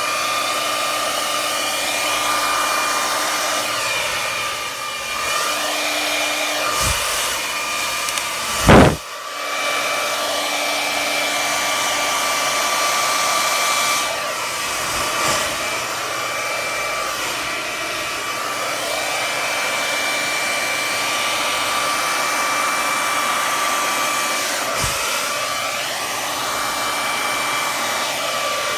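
Handheld hair dryer running steadily, a constant rush of air with a steady motor whine. A single sharp knock about nine seconds in is the loudest moment.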